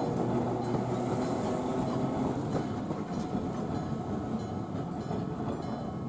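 A Randen tram running through a level crossing, its wheels and running gear making a steady rumble that eases slightly towards the end. The crossing's warning alarm sounds faintly over it.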